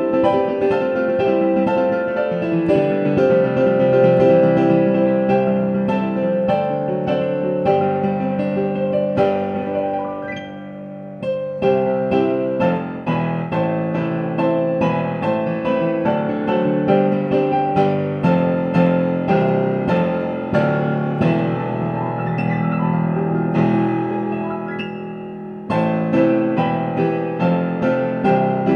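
Solo piano playing a slow, flowing piece, notes and chords struck in steady succession. Twice the playing thins and a chord rings out and fades before the next phrase comes in.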